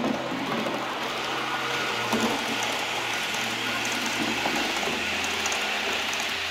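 H0-scale model ÖBB Railjet running past close by: a steady rolling rush of metal wheels on the rails, with a few light clicks scattered through it.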